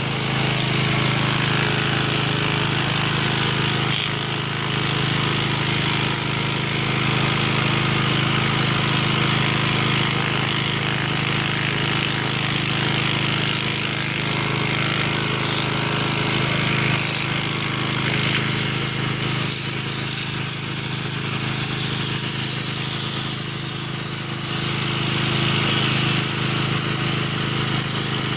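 A motor-driven cleaning machine running steadily with a loud hum and a strong hiss while the dirt-caked A/C blower fan housing is cleaned. It starts just before this point and eases a little about two-thirds of the way through.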